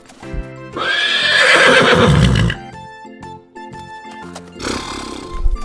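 Horse neighing: one long, loud whinny starting about a second in, then a shorter, fainter one near the end, over light background music.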